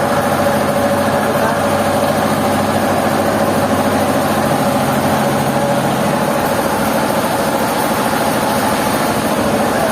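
Industrial sawmill machinery running with a loud, steady mechanical hum and a constant whine; part of the lower hum drops away about halfway through.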